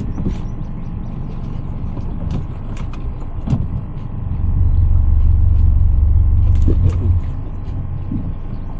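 Boat motor running steadily with a low rumble. It grows louder for a few seconds in the middle, then drops back, and there are scattered sharp clicks and knocks throughout.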